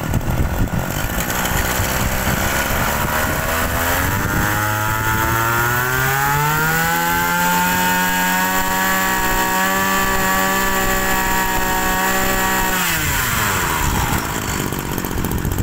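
Small engine of a used GE2KC brush cutter running. Its pitch climbs smoothly over a few seconds as it is revved, holds steady at speed, then drops quickly near the end as the throttle is released.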